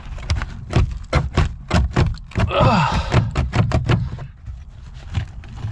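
A car's scissor jack knocking and clacking in its trunk mount as it is yanked and wiggled against its clip, a quick irregular run of sharp metal knocks. A brief vocal grunt or exclamation comes about halfway through.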